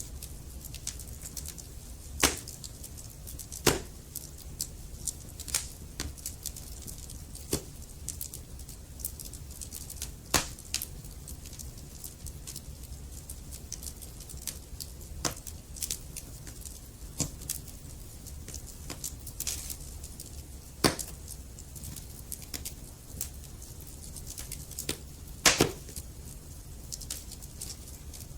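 Wood fire crackling in a fireplace: a constant scatter of small crackles with a handful of louder sharp pops, over a steady low rumble.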